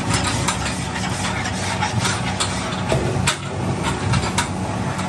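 A motorised food-processing machine running with a steady low hum, with frequent sharp clicks and clatter over it.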